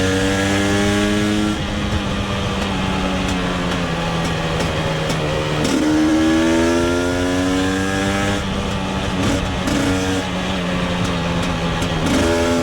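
KTM 250 EXC TPI's single-cylinder two-stroke engine pulling hard with rising pitch, dropping back about a second and a half in, then climbing again from around six seconds. Near the end it rolls off, with short throttle blips.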